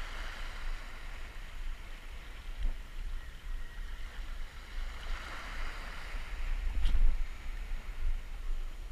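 Sea waves washing against a rocky shore over a low rumble. A swell of surf builds about five seconds in and peaks around seven seconds, with a brief click at the peak.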